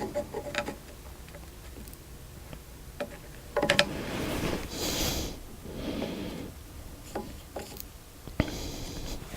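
Metal hand tools and mill parts being handled: scattered clinks and taps, a cluster of ringing metallic clinks about three and a half seconds in, and a sharp knock near the end.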